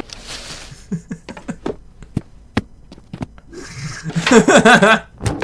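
Raw on-set studio sound: scattered knocks and clicks, with a hiss dying away at the start. About a second of a person's voice comes near the end.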